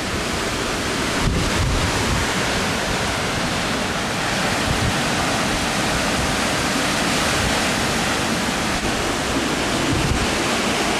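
Hurricane-force wind blowing in a steady rush, with an uneven low rumble of wind buffeting the microphone.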